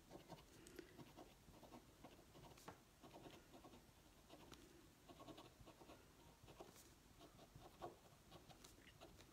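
Faint scratching and tapping of a paint pen's tip on a smooth painted pebble, with many short strokes as small triangles are drawn.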